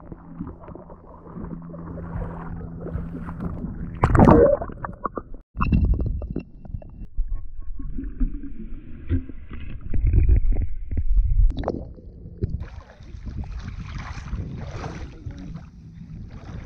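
Water sloshing and gurgling around a camera dipped in and out of shallow water, with a muffled underwater rumble. A loud bump about four seconds in, a brief drop-out a little later, and a rougher splashing hiss near the end.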